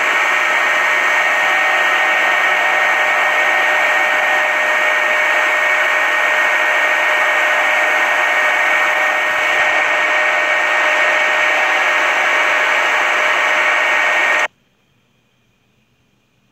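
Loud, steady hiss of static-like noise with a couple of faint steady tones in it, cutting off suddenly near the end.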